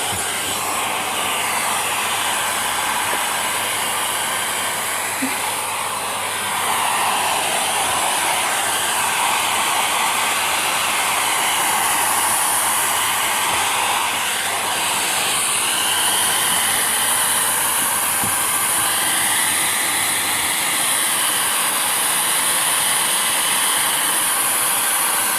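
Hair dryer running steadily, a continuous rush of air whose tone slowly wavers, a little louder from about six seconds in.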